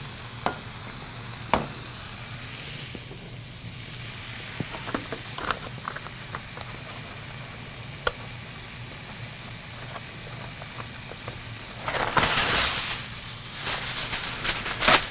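Chicken cutlets frying in oil in a sauté pan: a steady sizzle, with scattered clinks of a utensil against the pan. The sizzle flares louder about twelve seconds in for a second or so.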